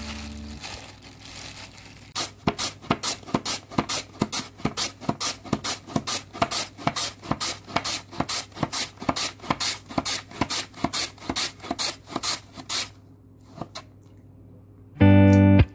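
Raw potato drawn over a julienne slicer, a rhythmic run of sharp scraping strokes about three a second that stops about 13 seconds in. Guitar music starts near the end.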